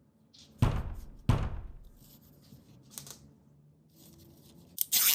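Hands handling a plastic L.O.L. Surprise ball: two sharp knocks with a deep thud, about half a second apart, near the start, a light click around three seconds in, then a short burst of plastic crinkling near the end.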